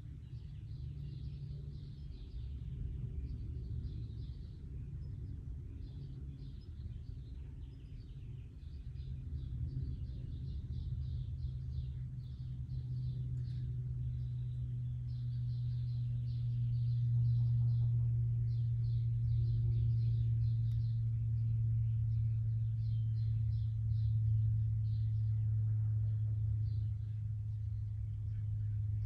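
A steady low rumble that grows louder about halfway through, with quick high chirping repeating over it.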